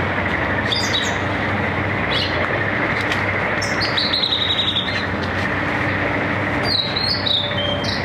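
Male blue-and-white flycatcher singing: four short high phrases, the longest about four seconds in, with a fast run of repeated notes, and another near the end. Under the song runs a steady background noise with a low hum.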